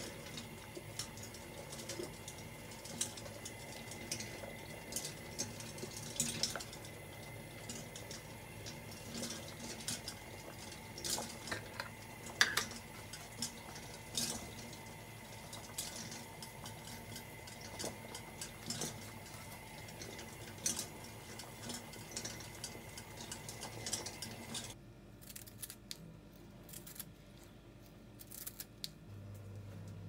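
Small clicks and taps of food pieces and fingers on a ceramic plate as a dish is put together, over a steady electrical hum. The hum cuts off abruptly near the end, leaving only a few faint clicks.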